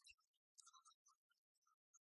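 Near silence, with a few faint, short, high ticks scattered through it.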